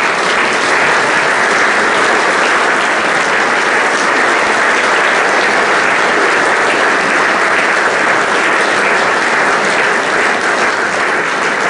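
Audience in a large hall applauding at the end of a lecture: steady, sustained clapping from many hands.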